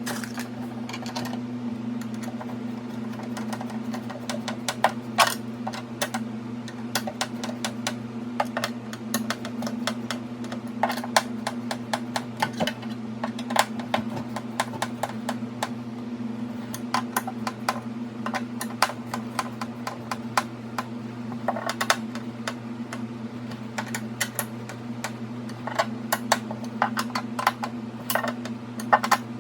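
Irregular light clicks and taps, some in quick runs, over a steady low electrical hum.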